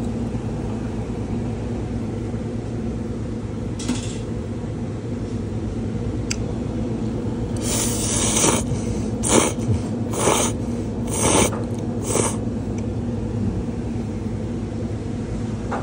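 Steady low machine hum. In the middle comes a run of about six short hissing bursts, each lasting a fraction of a second.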